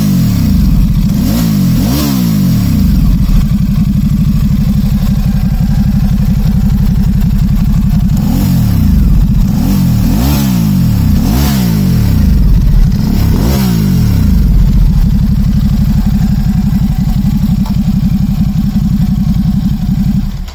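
Ducati Supersport S's 937cc L-twin engine through its stock twin-tip exhaust, idling between quick throttle blips: two about a second in, then a run of four or five in the middle, each revving up and dropping straight back to idle.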